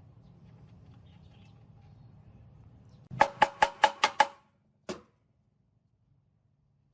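Metal struck with a hammer: six quick ringing blows, about five a second, then one more blow after a short pause, over a faint low hum.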